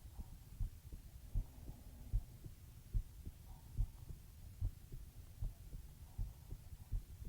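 Human heartbeat heard close up at the chest: steady, low lub-dub beats at a slow resting pace, about one beat every 0.8 seconds.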